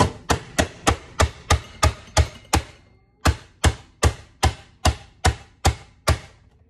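Manual vegetable chopper's plastic lid slammed down again and again, forcing onion through its grid of blades: a run of sharp bangs, about three a second, with a short break about three seconds in before a second run.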